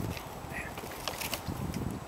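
A few faint taps from a mute swan's bill pecking at bread on wooden dock boards, over a low, uneven rumble.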